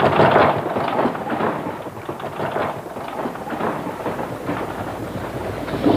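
Horse-drawn wooden wagon with spoked wooden wheels rolling over rough ground, a steady rumble packed with irregular rattles and knocks. It dips a little in the middle and picks up again near the end.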